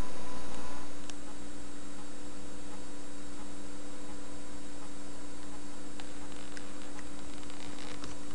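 Steady electrical mains hum, a low tone with a few higher tones above it, somewhat louder in its first second. A few faint clicks come near the end.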